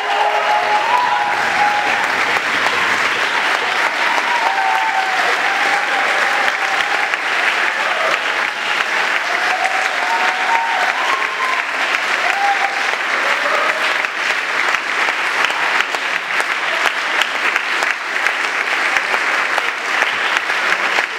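Sustained applause from a crowd of many hands clapping at once, steady throughout. A few short voices call out over it in the first seconds and again about ten to thirteen seconds in.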